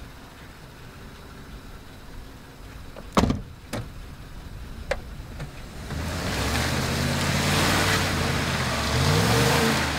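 A pickup door slams shut about three seconds in, then from about six seconds the Ford F-150's engine revs hard as the truck tries to drive out through snow and mud, a loud hiss of tyres churning over it, the engine pitch climbing near the end.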